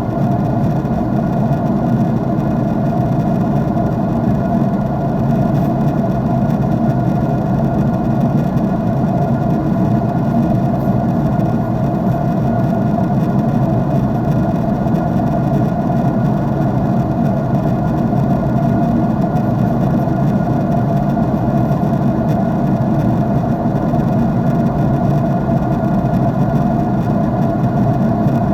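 Jet airliner cabin noise from a window seat: the engines and rushing air make a steady, unbroken low roar, with a few faint steady hums in it.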